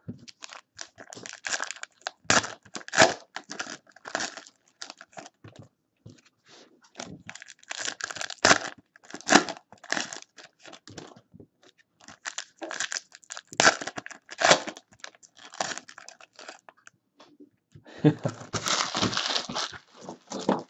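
Foil trading-card pack wrappers from Panini Prizm basketball hobby packs being torn open and crinkled by hand, in an irregular run of crackles and rustles, with a denser stretch of rustling near the end.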